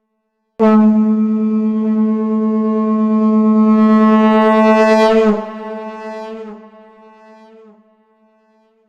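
Shankh (conch shell) blown in one long, steady note pitched on A. It starts suddenly about half a second in, holds for about five seconds, then drops away and fades out over the next two to three seconds.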